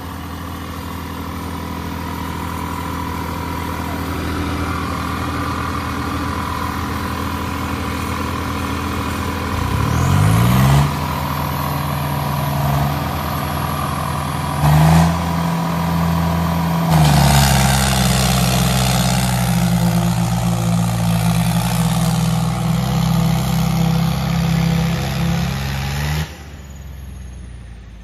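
Tractor diesel engines at full throttle under heavy load as a Swaraj 963 and a John Deere 5050D pull against each other in a tug-of-war. The engine note climbs about a third of the way in, runs hard and loud with surges, then cuts back sharply near the end.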